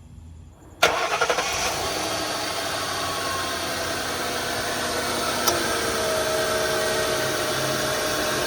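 2003 Lincoln Town Car's 4.6-litre V8 starting about a second in, with fresh oil just put in, then idling steadily.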